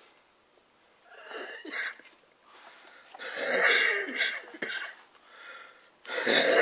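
A man coughing in several bouts: a short one about a second in, a longer, louder fit around the middle, and another near the end.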